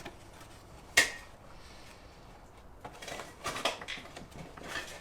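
White sound-dampening liner being pulled off the plastic hooks inside a Tesla Model 3 door: a sharp snap about a second in, then a few seconds of scattered rustling and scraping as the sheet comes away.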